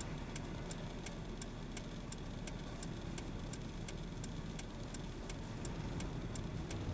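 Car cabin engine and road rumble with the indicator relay clicking evenly, about three clicks a second.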